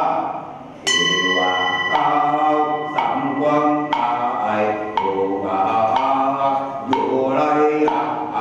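Voices chanting together in a steady rhythm, with a wooden block knocked about once a second to keep the beat. A small bell is struck once about a second in and rings for about a second.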